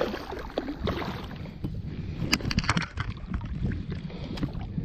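Water splashing and sloshing as a hand works a trout in a landing net in shallow river water, with wind rumbling on the microphone. A few sharp splashes and clicks come a little past halfway.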